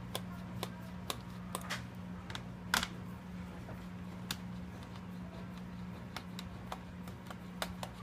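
Small screwdriver loosening the keyboard retaining screws in the plastic underside of an HP ProBook 6550B laptop: irregular light clicks and ticks, roughly two a second, with one louder click about three seconds in, over a steady low hum.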